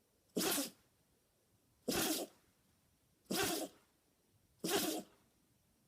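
A puppy sneezing four times in a row, each sneeze short and sharp, about one and a half seconds apart.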